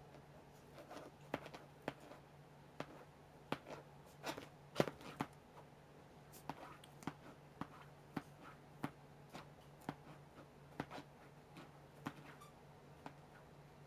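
An American Shorthair cat's claws scratching and catching at a mattress's fabric cover in quick, irregular strokes, faint, over a steady low hum.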